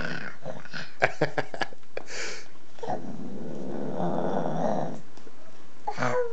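Lion roar played from a children's sound toy's small speaker: a rough growl of about two seconds, starting about three seconds in and cutting off abruptly. A few sharp clicks come about a second in.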